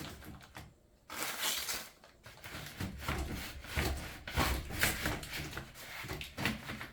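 Irregular rustling and scraping, the handling noise of a furnace air filter being moved about.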